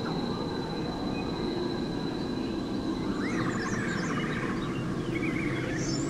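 Forest ambience: the steady rushing of a creek, with birds chirping in the second half. A thin, steady high tone fades out about halfway through.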